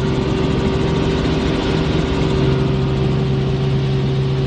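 Helicopter in flight: the steady drone of engine and rotor, with a fast low flutter from the blades.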